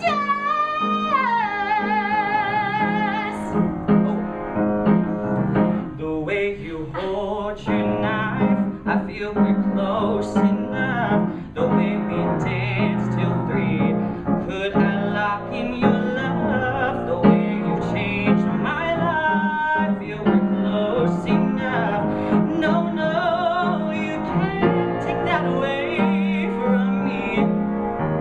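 A solo voice singing with piano accompaniment, holding notes with a wide vibrato, in a musical-theatre style.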